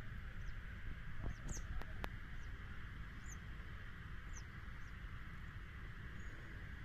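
Open-air ambience at the water's edge: a faint steady hiss with a few short, high, falling bird chirps now and then, and two or three light clicks about one to two seconds in.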